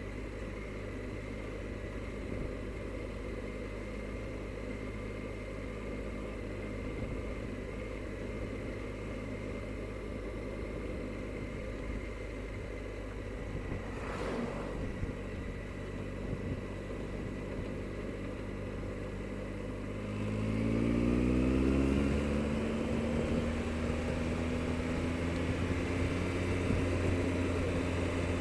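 Triumph Explorer motorcycle's three-cylinder engine cruising steadily under wind noise, then accelerating about two-thirds of the way in, the engine note rising and louder before it settles at a higher steady pitch.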